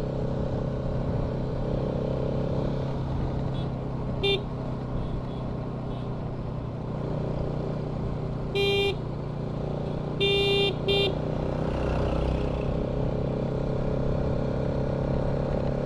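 Motorcycle engine running steadily on the road, with a vehicle horn honking four times: a short toot about four seconds in, another just under nine seconds in, then a longer blast and a quick toot around ten to eleven seconds in.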